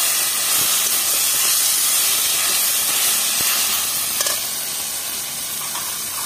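Spinach and eggplant sizzling with a steady hiss as they dry-fry in a hot kadai, stirred with a flat metal spatula, with a few light scrapes of the spatula about three and four seconds in.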